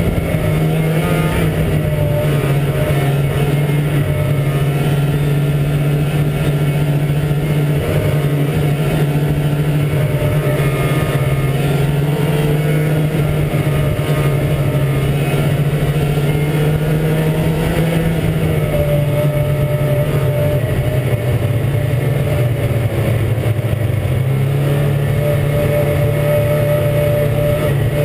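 Ski-Doo MXZ 380 snowmobile's two-stroke engine running at a steady trail cruise. Its pitch eases down a little past halfway and picks back up near the end.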